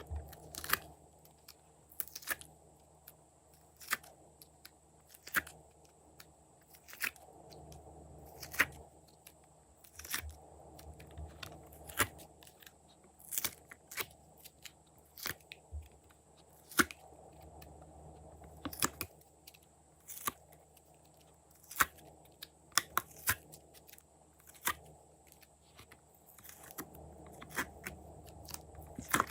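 Glossy slime being pressed and stretched by hand, giving sharp clicking pops about every second and a half, with quicker clusters in places.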